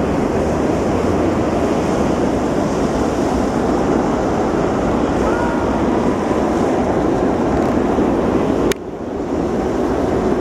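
Military jet engines running loud and steady as a pair of fighter jets climb away after takeoff. A sharp click a little under 9 seconds in, with a sudden brief dip in loudness.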